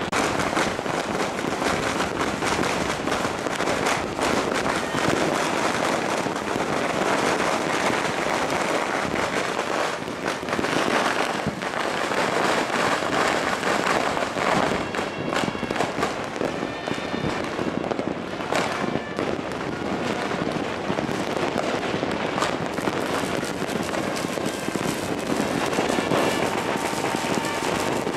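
Many fireworks and firecrackers going off at once across a city, a dense, unbroken crackle of countless pops and bangs.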